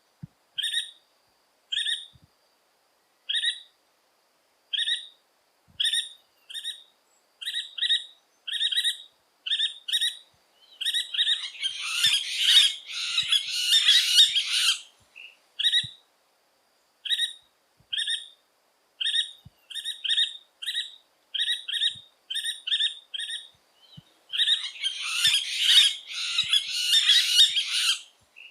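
Yellow-fronted woodpecker (pica-pau-benedito) calling: a series of short, sharp notes, one or two a second, broken twice by a few seconds of dense, fast chattering.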